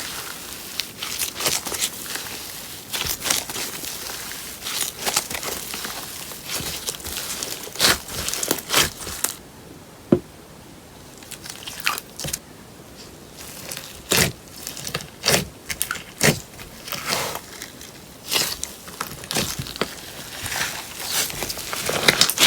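Slime being squeezed, stretched and poked by hand, making irregular sticky clicks, pops and crackles, with a quieter pause about halfway through.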